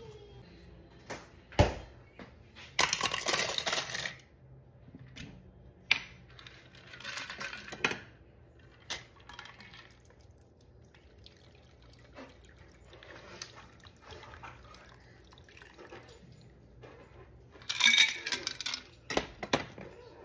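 A cocktail is strained from a copper shaker through a fine-mesh strainer into a glass of ice, with liquid pouring and dripping. Sharp clinks of glass and metal come through, with two louder clattering stretches, one early and one near the end.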